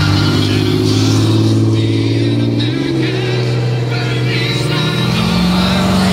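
Heavy-duty pickup trucks towing loaded gooseneck flatbed trailers driving past one after another, their engines making a loud, steady drone that shifts in pitch as each truck passes.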